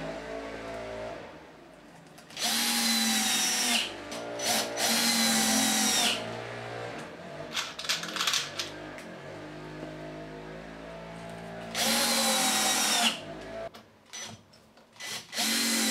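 Cordless drill-driver driving wood screws down into a plywood board, in four short runs. The motor's whine falls away at the end of each run as the screw seats and the trigger is let go.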